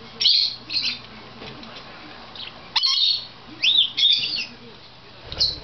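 Pet budgerigars chirping: short, high chirps and warbles in a few bursts, some sweeping up and down in pitch.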